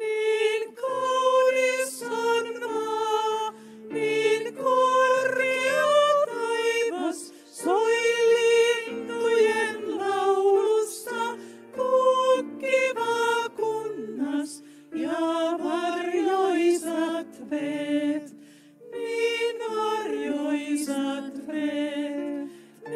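A woman singing a Finnish spiritual song, accompanying herself on a grand piano, phrase by phrase with short breaks between the lines.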